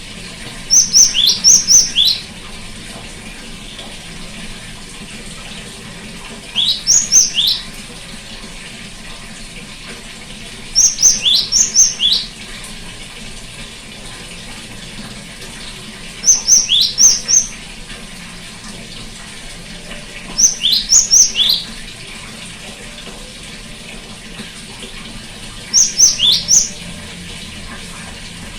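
Great tit song: a short phrase of four or five quick, high notes, each sweeping downward, repeated six times about every four to five seconds over a steady background hiss.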